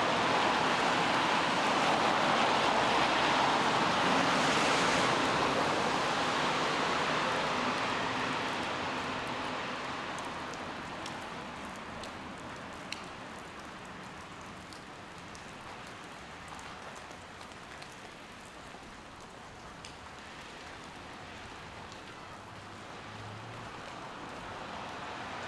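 Rain falling, with the hiss of traffic on a wet street, loudest for the first several seconds, then dying away and swelling again near the end.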